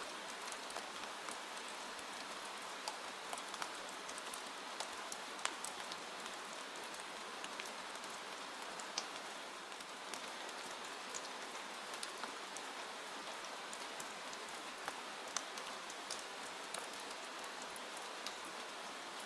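Steady rain with a constant hiss, and many separate drops ticking sharply against a window pane.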